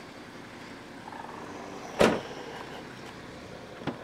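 A single heavy thud about two seconds in as the BMW X5's tailgate is shut, then a light click near the end at the rear door handle.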